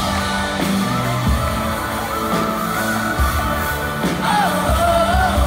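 Live church worship band playing loud, a singer's wavering melody over drums and bass, heard from among the crowd.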